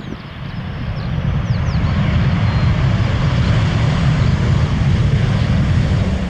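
Arriving airliner flying past: its engine noise swells over the first two seconds, holds steady and loud, then falls away sharply at the end.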